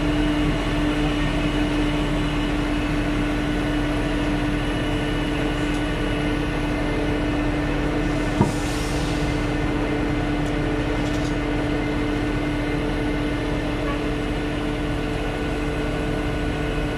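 KATO NK-3600 truck crane's engine and hydraulics running steadily under load during a lift, a constant drone with a steady hum, heard from inside the operator's cab. A single sharp click a little past the middle, followed by a brief hiss.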